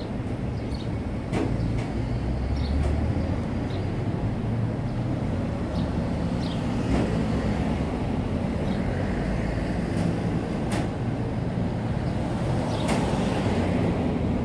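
Street traffic on a town main street: a steady low rumble of passing cars and vans, with a few sharp clicks scattered through.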